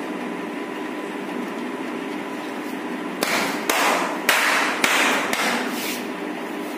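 A hammer striking about five times, roughly half a second apart, starting about three seconds in, tapping down the edge of a PVC floor sheet. A steady hum runs underneath.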